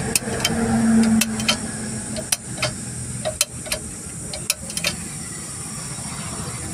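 Irregular metal clicks and taps from hand work on a Leyland truck's gearbox clutch housing, about a dozen spread over several seconds, over a steady high hiss.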